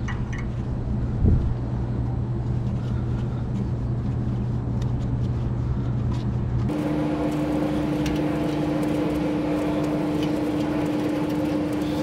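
Steady mechanical hum of running machinery, with a single sharp knock about a second in. About halfway through, the hum changes abruptly to a steadier drone with a clear mid-pitched tone.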